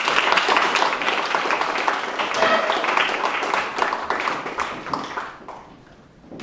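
Audience applauding: a dense patter of many hands clapping that fades out after about five seconds.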